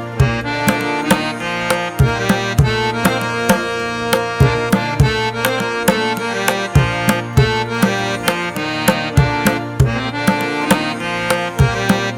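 Instrumental background music with a steady hand-drum beat under a held melodic line.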